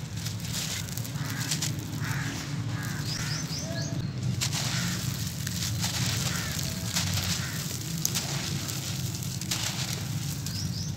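Dry, gritty cement-and-sand lump crumbled between bare hands, with grit and small chunks falling onto the pile in crisp crunches and crackles. A few bird chirps sound in the background, once about three seconds in and again at the end.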